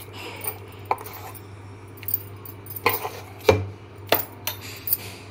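A steel spoon clinking and scraping against a stainless steel bowl while scooping out ground dal batter: about eight short, irregular clinks.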